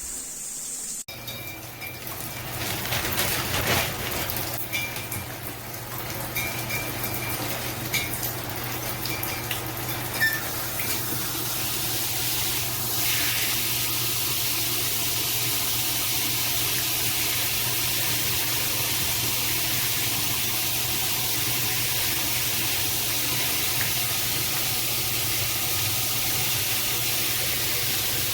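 Water spraying from a filtered shower head in a steady stream, a little uneven for the first ten seconds or so.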